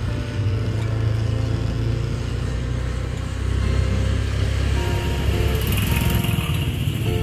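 A motorcycle passing close near the end, over a steady low vehicle rumble and light background music.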